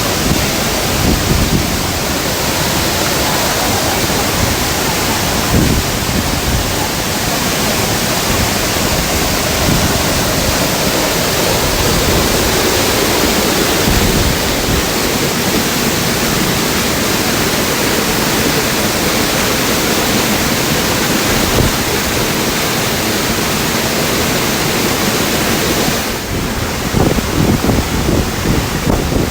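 Loud, steady rush of a waterfall's falling water, close by. Near the end the rush dips slightly and turns more uneven.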